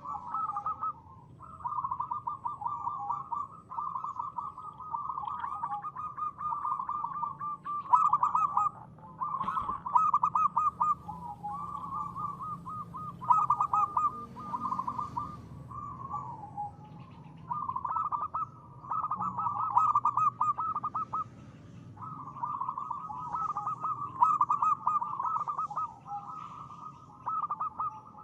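Local zebra dove (perkutut) singing: phrases of rapid, trilled cooing notes, one after another with brief pauses, in the clear 'ngristal' style.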